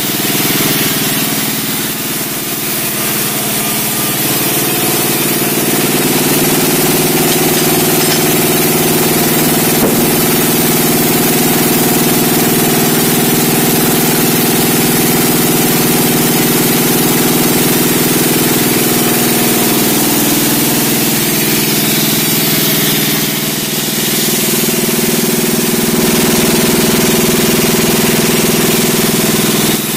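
Sawmill running, its engine drone steady under a dense hiss of the saw cutting timber, easing slightly a couple of seconds in and again about three-quarters of the way through.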